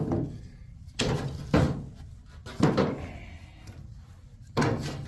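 Four sharp knocks and thuds at uneven intervals, like hard objects or a door being knocked or set down, each dying away quickly.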